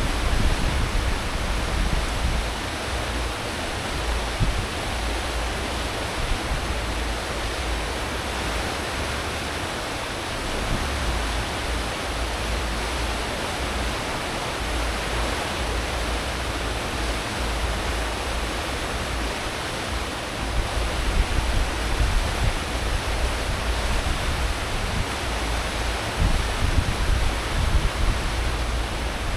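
Cruise ship's propeller wake churning astern at full speed: a steady rushing hiss of water over a deep, uneven rumble from the engines and propellers.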